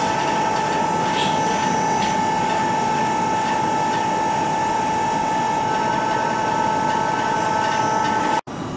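Self-contained electrohydraulic valve actuator's motor and hydraulic pump running steadily, a high whine over a hum, as it strokes the globe valve fully closed. The sound stops abruptly near the end.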